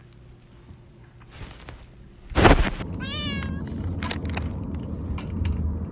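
A cat meows once, a short wavering call that falls in pitch, just after a loud sudden noise; a steady low rumble runs underneath from that noise on.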